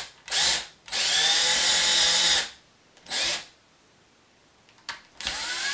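Cordless drill boring pilot holes through a fabric-wrapped wooden 1x2 board, the trigger pulled in pulses: a short blip, a whine of about a second and a half, another short blip, then near the end the motor spins up again, rising in pitch.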